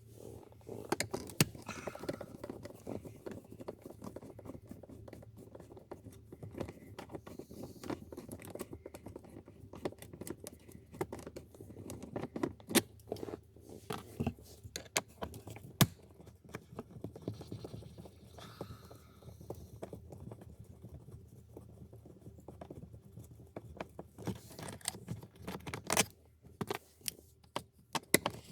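Irregular small clicks, scrapes and rattles of a hand tool working screws out of a car's center console, with loose screws and trim being handled.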